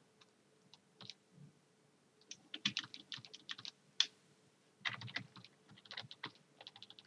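Typing on a computer keyboard: short bursts of quick, faint keystrokes.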